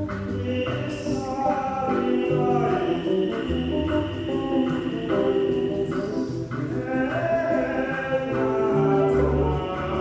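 Church choir singing with instrumental accompaniment: the Gospel acclamation sung between the second reading and the Gospel at Mass.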